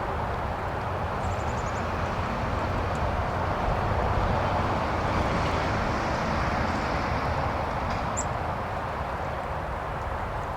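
Steady rushing background noise with a low rumble, and a few faint, short high bird chirps: a quick run of chirps about a second in and a single chirp near eight seconds in.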